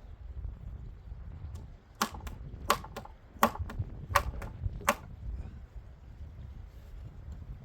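Hand tool striking and cutting wood: about nine sharp wooden knocks over some three seconds, several in quick pairs, over a low steady rumble.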